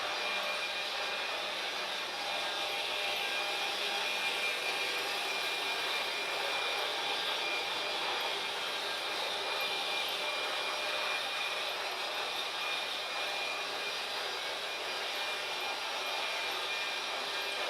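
Freight train rolling steadily along the rails, a continuous rushing rumble of wheels and cars with faint steady high-pitched tones riding on top.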